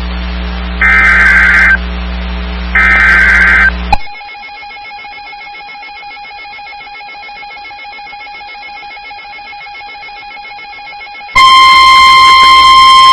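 NOAA Weather Radio alert signals. First come two harsh, buzzy data bursts of the SAME header, about a second each and a second apart, over a low radio hum. Then a fainter steady tone runs for about seven seconds. About eleven seconds in, the loud 1050 Hz warning alarm tone comes on, announcing the next warning.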